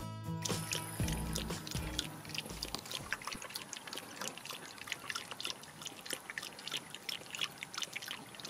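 A small dog lapping water from a stainless steel bowl: a steady run of quick, wet laps, a few each second. Background music fades out over the first couple of seconds.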